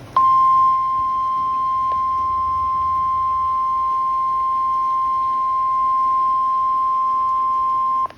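NOAA Weather Radio warning alarm tone, a steady single-pitched 1050 Hz tone. It sounds loud and unbroken for about eight seconds, with a brief dropout near the end. The tone signals that a new warning is about to be read, here a severe thunderstorm warning.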